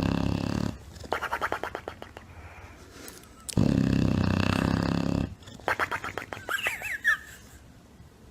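English bulldog snoring: two loud, rasping snores on the in-breath, each followed by a rapid fluttering out-breath. The second out-breath ends in a squeaky, wavering whistle.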